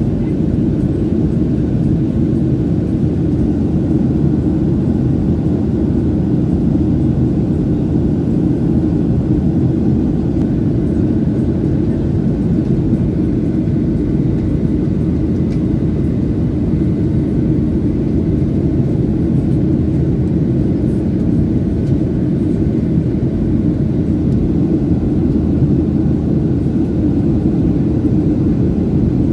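Jet airliner cabin noise in cruise: the steady roar of the engines and airflow over a Boeing 737's fuselage, even and unchanging, with its weight in the low range.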